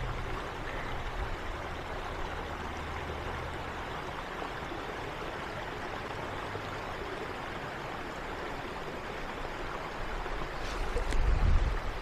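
Small creek cascading over rocks: a steady rush of running water. A low rumble swells near the end.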